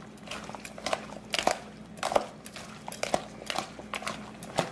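Metal tongs tossing a chopped tomato, cucumber and onion salad in a plastic bowl: irregular clicks and scrapes of the tongs against the bowl and the wet vegetables.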